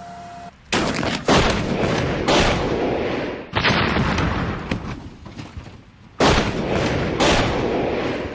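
A string of heavy, sudden blasts, each with a long fading rumble: the Chieftain tank's 120mm gun firing and its shell blowing up the Yugo car.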